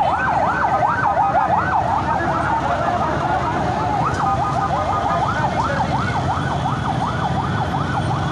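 Emergency-vehicle sirens in a fast yelp, sweeping up and down about three times a second. Through the middle a second siren overlaps out of step, and a low rumble runs underneath.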